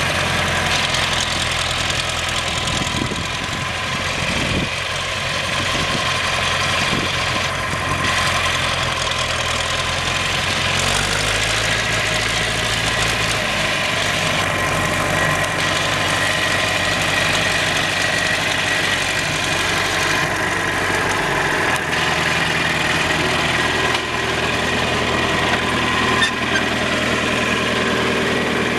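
John Deere 3010 four-cylinder diesel engine running at idle, a steady diesel clatter. Its low hum changes pitch slightly about a third of the way in and again about two-thirds of the way through.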